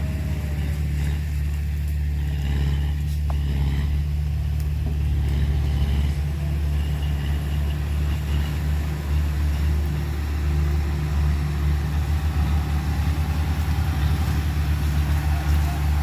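Heavy diesel engine running steadily with a deep hum, throbbing a little faster in the second half.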